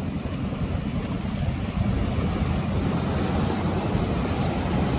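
Steady seaside wind and surf noise, with wind rumbling on the microphone.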